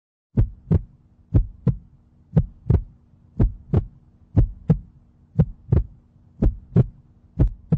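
A heartbeat: paired lub-dub thumps about once a second, over a faint steady hum.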